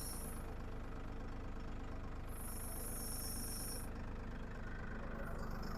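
Massey Ferguson 1835E compact tractor's diesel engine running steadily at low revs while the tractor is reversed toward a rotary cutter. A high-pitched buzz comes in for about a second and a half midway.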